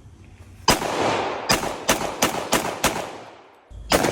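A firearm fired about seven times: one shot, then a quick string of about five shots, then one more near the end. Each shot is followed by an echoing tail.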